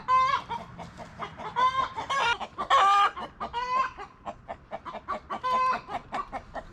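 Domestic chicken clucking, with about half a dozen short pitched calls between softer clucks; the loudest and longest call comes about three seconds in.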